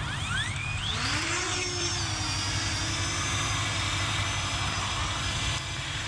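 Parrot Anafi quadcopter's rotors spinning up for takeoff, their whine rising steeply in pitch over the first second, then settling into a steady high whine as the drone flies.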